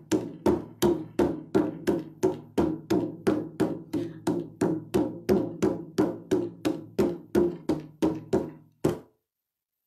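Hand-played drum beaten in a fast, steady beat of about three strikes a second, each with a short low ring. It stops abruptly near the end: the cue to freeze in a freeze-dance game.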